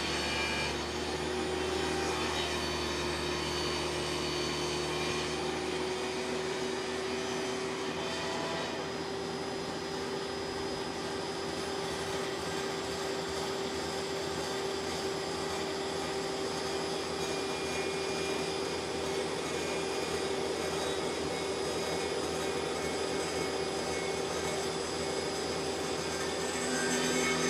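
Portable table saw running with a steady whine, its blade cutting up through a wood-grain laminated panel.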